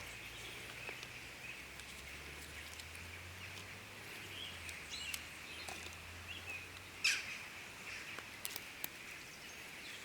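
Campfire crackling with scattered sharp pops, the loudest about seven seconds in, over a steady outdoor background with faint bird chirps.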